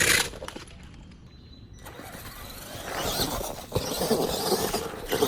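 Radio-controlled truck driving over rough ground, its motor and tyres rising into a fluctuating rush about halfway through, with a sharp knock near the middle.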